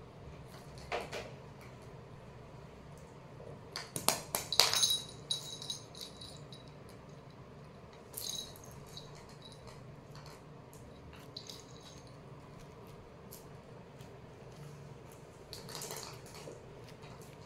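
Small cat toys being batted and knocked about on a hard tiled floor: scattered clicks and rattles, with a cluster of sharp knocks and a short bright ringing about four to five seconds in, and brief scuffles near the middle and the end.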